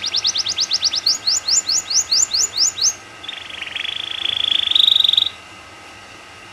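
Domestic canary singing. First comes a run of quickly repeated rising whistled notes that slow to about four a second. A fast buzzy roll follows, climbing in pitch and stopping short about five seconds in.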